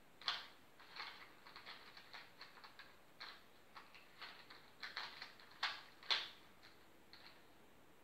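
3x3 Rubik's cube being turned by hand: quick, irregular clicks and clacks of its layers rotating, loudest just after the start and twice around six seconds in, thinning out near the end.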